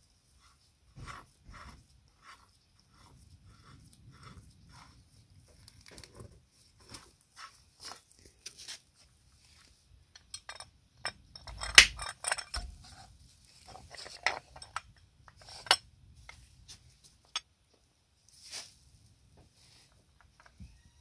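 Hard objects being handled on a workbench: an irregular run of light clicks, taps and clinks, with one sharper knock a little before the middle.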